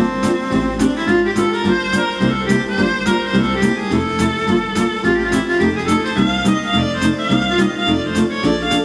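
Instrumental background music with a steady beat and a sustained melody line.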